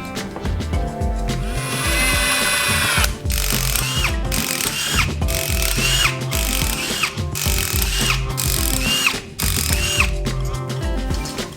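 Power tool whirring in short repeated bursts, each rising then falling in pitch, over background music with a steady beat.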